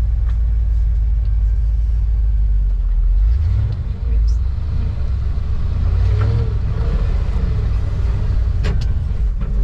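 C30 wrecker truck's engine running heard from inside the cab as the truck drives, a steady low rumble whose pitch steps up about three seconds in.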